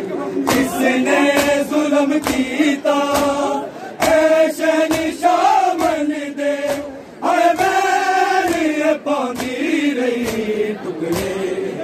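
A group of men chanting a noha (Shia lament) together, their voices rising and falling in a slow melody. Sharp slaps of matam (chest-beating) strike roughly once a second under the chant.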